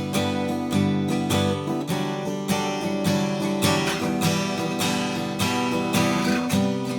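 Taylor PS14ce Presentation Series acoustic guitar, chords strummed at about two strokes a second and left ringing between strokes.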